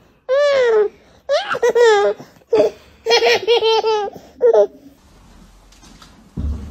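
A baby belly-laughing: high-pitched giggles in several bursts of quick ha-ha-ha pulses, stopping about four and a half seconds in.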